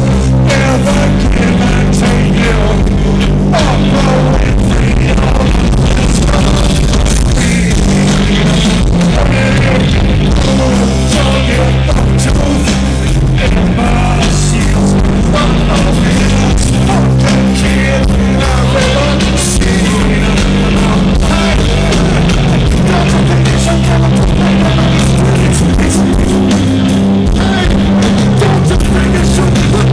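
Live rock band playing loud: electric guitars, bass and drum kit, with a low riff repeating in steady blocks of notes, heard from among the audience.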